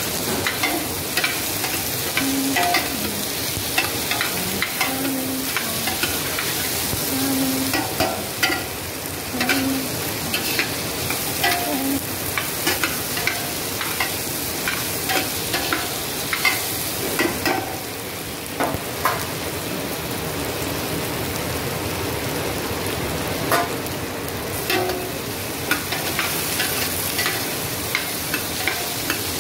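Diced carrots, potatoes and onions sizzling as they sauté in a stainless steel pot, stirred with a spoon that clicks and scrapes against the pot's sides and bottom many times.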